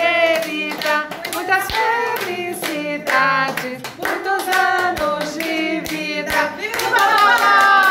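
A few people singing together while clapping their hands in a steady rhythm.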